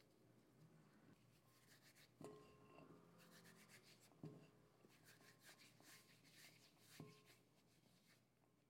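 Hands rubbing and crumbling moist glutinous rice flour between the fingers in a glass bowl, a faint soft rustle. Three times a hand knocks against the glass bowl, which rings briefly.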